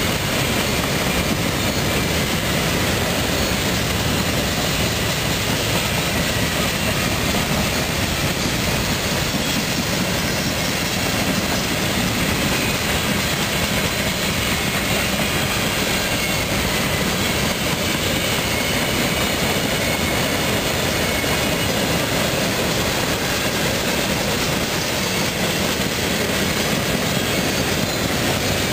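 Loaded coke hopper cars of a freight train rolling past, a steady, unbroken noise of steel wheels on rail.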